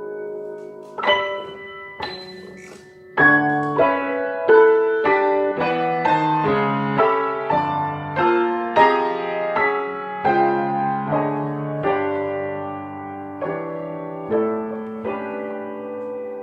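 Piano music: two single notes about a second and two seconds in, then a flowing melody of struck notes at about two a second.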